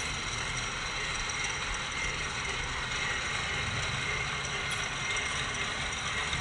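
Battery-powered toy train running on plastic track: a steady electric-motor whir with the rattle of its wheels and cars.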